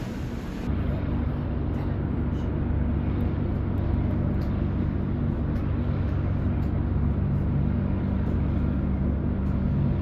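Low, steady ship's engine rumble with a faint hum, setting in just under a second in after softer wind and water noise.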